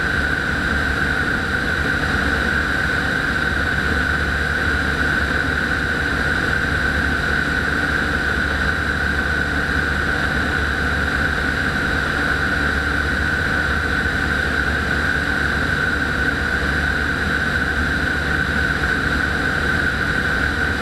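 Rotax 912 flat-four engine and propeller of a microlight trike running steadily in cruise flight. It is an even, unbroken drone with a strong high hum and a low rumble underneath, with no change in power.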